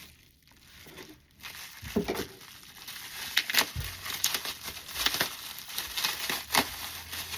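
Plastic packaging crinkling and rustling as a slime container is unwrapped, in irregular crackles that start about two seconds in.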